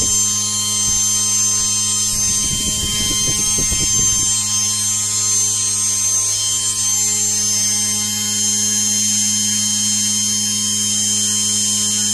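3D-printed 12-slot 10-pole brushless motor running steadily at constant speed: a high electronic whine over a low hum. Uneven low rumbling rides on it for about the first four seconds, then stops.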